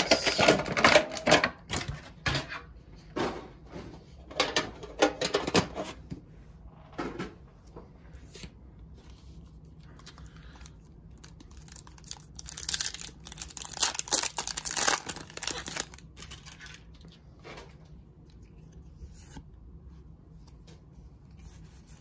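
Foil Pokémon trading card booster pack wrapper crinkling and being torn open by hand. The noise comes in bursts over the first six seconds and again from about twelve to sixteen seconds in.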